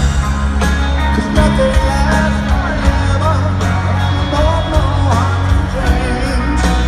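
Live rock band playing a slow piano ballad: male lead vocal over piano, bass and drums, recorded loud from within a stadium crowd.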